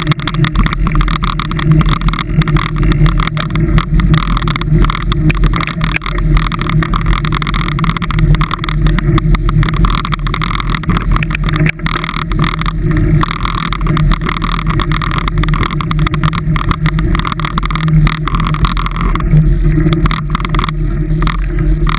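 A vehicle engine running steadily at speed, loud and close, with a noisy haze of road and wind noise. About nineteen seconds in, its higher tones fade as the vehicle slows.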